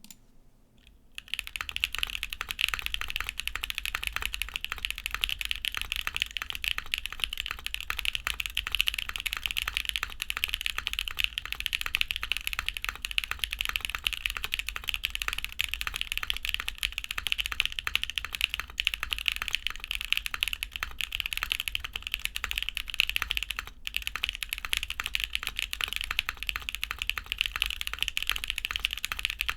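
Singa x Monokei Neko custom mechanical keyboard with a polycarbonate plate, no foam, lubed Hoshizora switches and ABS doubleshot keycaps, typed on continuously and quickly, starting about a second in.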